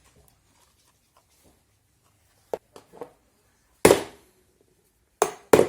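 Plastic case of a laptop power adapter cracking and knocking as a screwdriver forces its glued seam apart. A few light clicks come first, then three sharp, loud cracks from about four seconds in.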